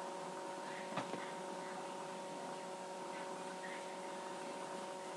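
Steady electrical hum with several fixed tones over a faint hiss, and a light knock about a second in.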